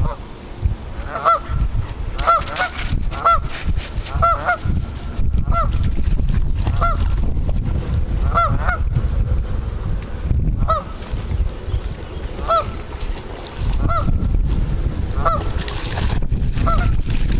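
Canada geese honking: short calls repeated about once a second, with a few brief pauses, over a steady low rumble.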